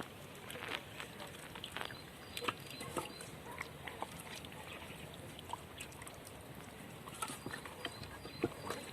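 Hands rubbing salt and pepper into raw mackerel: soft wet squelches and small irregular clicks of handling the fish.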